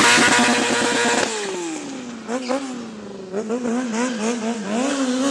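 Sport motorcycle engine held at high revs with the rear tyre spinning and hissing in a smoky burnout; about a second in the revs drop and the hiss stops. The engine then winds back up in a quick run of throttle blips, about four a second, and rises again near the end.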